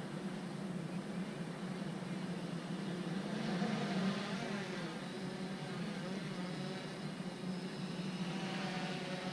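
Small camera quadcopter's propellers whirring steadily as it hovers and is brought down, the pitch wavering about a third of the way in, and a whine of several tones growing stronger near the end.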